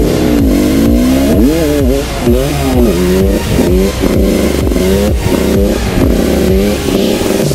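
A red Husqvarna motorcycle's engine revving up and easing off again and again, its pitch rising and falling in quick sweeps, heard close up from the handlebars.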